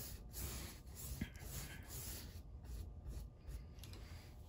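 Paintbrush loaded with white gesso stroked back and forth across a textured canvas: a run of scratchy brushing swishes that thin out about halfway through.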